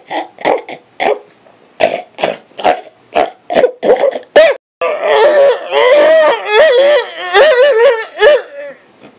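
A man making silly mouth and throat noises. First comes a quick string of short, sharp vocal bursts, about three a second. Then, after a brief break, a long warbling sound whose pitch wobbles up and down.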